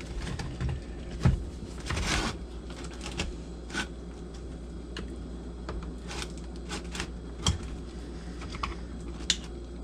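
Scattered small clicks and taps of a screwdriver prying at a stuck plug on a Stihl MS250 chainsaw during disassembly, with louder knocks about a second in and again at about seven and a half seconds. A steady low hum runs underneath.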